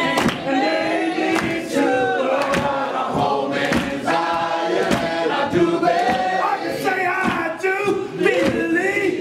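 A church congregation singing together, many voices at once, over a steady beat of sharp strikes about two to three a second.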